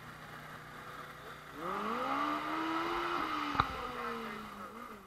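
Utility vehicle's engine speeding up about a second and a half in as it tows a tractor-pull sled, holding a steady pitch, then slowly easing off near the end. A single sharp click about halfway through.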